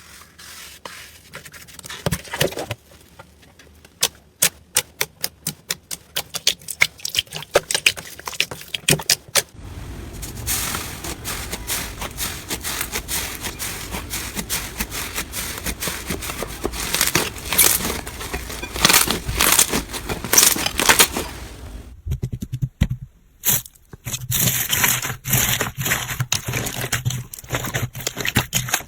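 Slime being worked by hand: a run of sharp separate crackles and pops, then dense, continuous crackling and squishing. About two-thirds of the way through there is a brief break, and a new clip of crackling begins with a faint steady hum under it.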